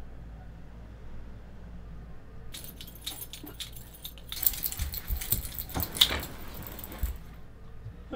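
A bunch of keys jangling and clinking, starting a couple of seconds in and stopping shortly before the end, with a few sharper clinks in the middle.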